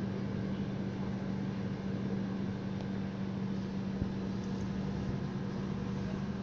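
Steady machine hum with one constant low tone over a background of noise, and a single brief click about two-thirds of the way through.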